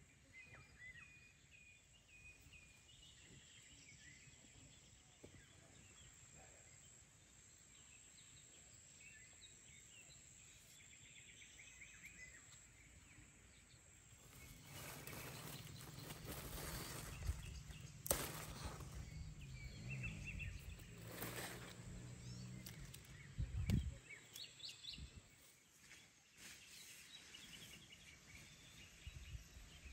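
Quiet garden ambience with small birds chirping now and then. About halfway through, louder rustling of plants and a few sharp knocks come in as someone works among the vegetable plants.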